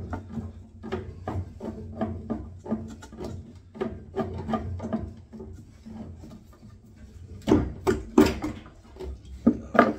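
Pipe slice being turned round a copper pipe with grips, cutting it: a repeated scraping stroke about two or three times a second, then a few louder knocks in the last few seconds.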